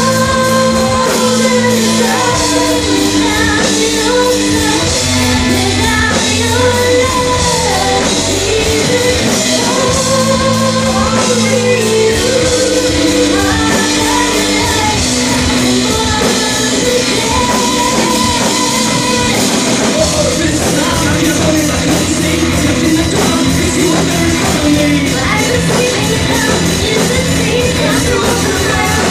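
Rock song with a singer, playing loudly and steadily.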